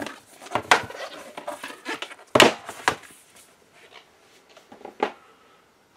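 Thick cardboard game boards being handled on a table: a few sharp knocks and scrapes with some rustling, the loudest knock about two and a half seconds in.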